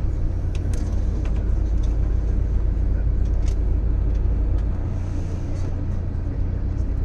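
Tour bus running, its engine and road rumble heard from inside the passenger cabin as a steady low drone that eases a little about five seconds in.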